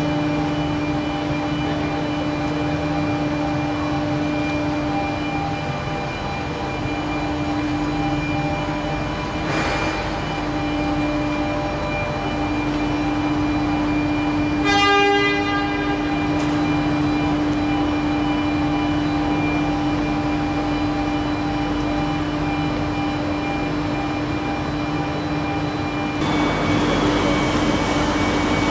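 Steady electrical hum and drone of a stationary Kawasaki-CRRC Sifang C151C metro train with its systems powered up. About halfway through, a short horn-like tone sounds for about a second, and the noise swells near the end.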